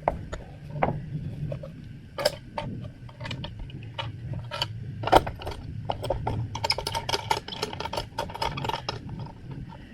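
A radial arm saw's blade guard and its clamp being handled: a string of short clicks and light metal knocks, busiest in the last few seconds, as the guard is pushed to see whether it slips on the motor housing.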